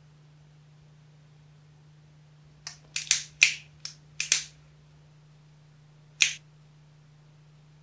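Cigarette lighter flicked to light a cigarette: a quick run of about seven sharp clicks in under two seconds, then one more a couple of seconds later.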